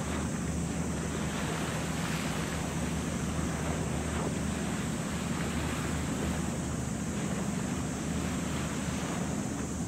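Steady wind and sea noise over a low, even hum.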